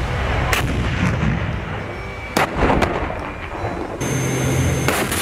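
Tank cannon firing: several sharp, heavy reports over a low rumble, with two shots in quick succession around the middle. From about four seconds in, a steady low hum of machinery runs under them.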